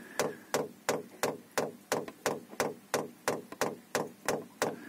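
Electric fuel dosing pump of a Chinese-made diesel air heater ticking steadily, about three clicks a second, as it primes the fuel line to drive out air bubbles.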